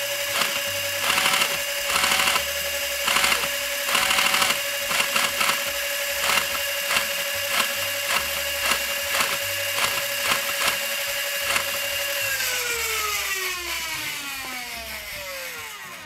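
Nerf Rapidstrike's flywheel motors spinning with a steady whine while the motorized pusher clacks through a string of short bursts and single shots, testing a dead-center pusher circuit. About twelve seconds in the flywheels are let go and spin down, the whine falling steadily in pitch.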